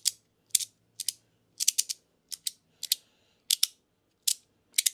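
Square free-floating magnetic fidget slider being played, its separate pieces snapping against each other in sharp clicks, often in quick pairs, about two a second.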